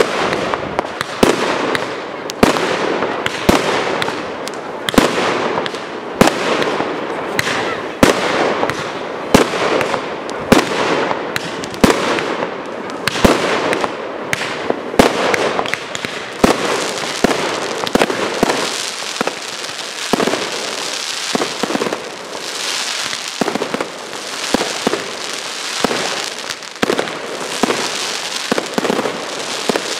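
Aerial fireworks display: a rapid run of shell bursts, with sharp bangs coming often one or two a second over a continuous crackle. The crackling haze grows denser in the second half.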